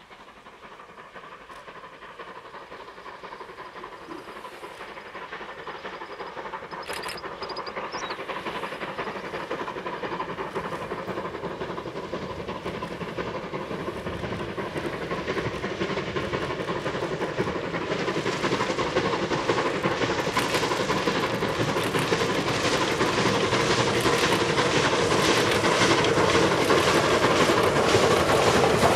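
Steam locomotive hauling a train of coaches up the line, working hard under heavy smoke, its exhaust beats getting steadily louder as it approaches, with the rumble and clatter of the coaches building near the end.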